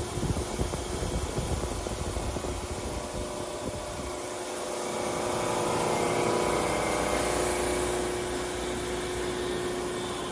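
Steady electric machine hum with several steady tones, growing a little louder about halfway through, with low rumbling bumps in the first few seconds.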